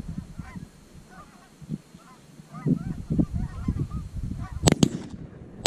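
Canada geese honking in scattered calls overhead, over a low rumble. Two sharp cracks close together near the end.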